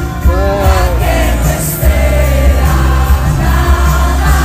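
A young woman singing along close to a phone's microphone at a stadium concert, over the live band and the lead singer's voice, with the crowd singing too.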